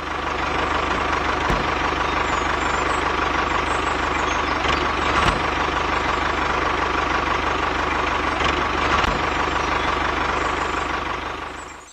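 Tractor engine running steadily at an even pace, fading in at the start and fading out near the end.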